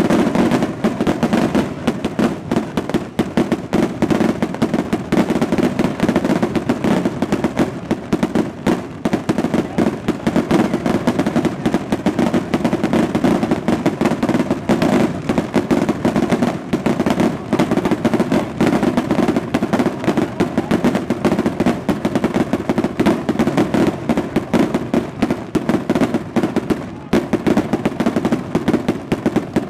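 Fireworks going off in a dense, unbroken rattle of rapid bangs, like a long string of firecrackers.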